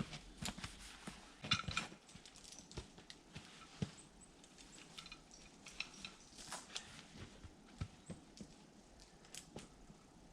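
Faint, irregular rustling and light clicks, with a louder cluster about a second and a half in: someone moving about and handling rigging gear.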